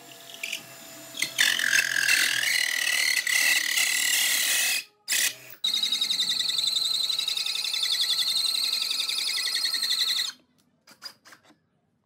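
Cordless drill with a long bit boring through a stack of pine strips, its motor whining in two long stretches with a short break about five seconds in. The second run is higher and wavers as the bit works through. The drill stops about ten seconds in, and a few light clicks follow.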